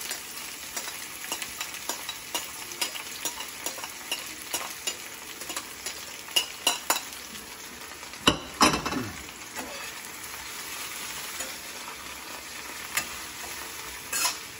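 Mushrooms and onions sizzling in hot oil in a stainless-steel skillet while a spoon stirs them, with frequent clicks of the spoon against the pan. A louder clatter a little past eight seconds in and another near the end.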